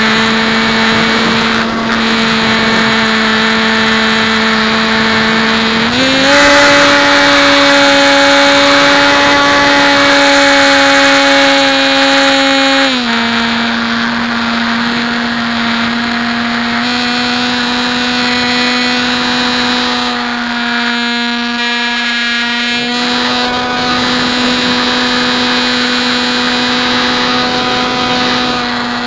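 Electric motor and propeller of a Bixler RC foam plane whining steadily, as picked up by the onboard keychain camera. The pitch steps up about six seconds in with a rush of air noise, drops back about seven seconds later, then rises slightly a few seconds after that: throttle changes in flight.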